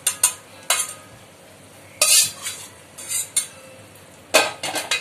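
Steel spoon scraping and clinking against a steel kadai and bowl as fried tempering (mustard seeds, dal, green chillies) is scooped out, a series of short sharp scrapes with the loudest cluster near the end, over a faint hiss of hot oil.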